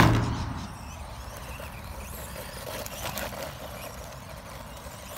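A Blackzon Slayer 1/16 4WD stadium truck, a small RC truck, driving over dirt and wood chips: a faint, steady rush of its running gear and tyres. A sharp click sounds right at the start.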